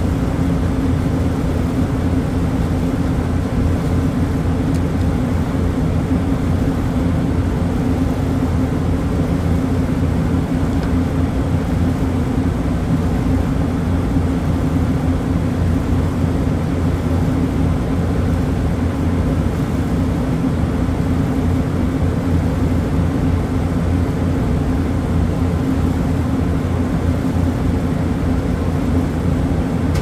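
Refrigeration compressors and condenser fans running with a loud, steady hum.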